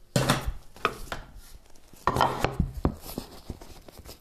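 Handling noise as the recording phone and its mount are moved about on a wooden table: a string of knocks and scrapes, loudest near the start and again about two seconds in.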